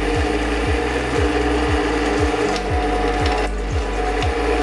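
Drill press running, its bit cutting into square metal pipe held in a vise, with a steady motor hum and the rough grind of the cut. Background music with a steady kick-drum beat about twice a second plays over it.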